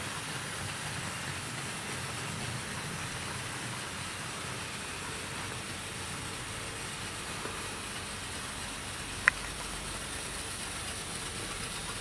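OO gauge model trains running on the track: a Hornby J50 tank locomotive pulling tank wagons gives a low rumble that fades out over the first few seconds as it moves away, leaving a steady hiss. One sharp click about nine seconds in.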